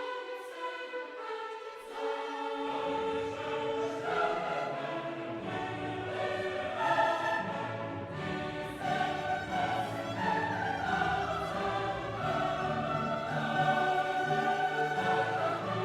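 Background music: orchestral and choral classical music with sung voices, a lower bass layer coming in about two and a half seconds in.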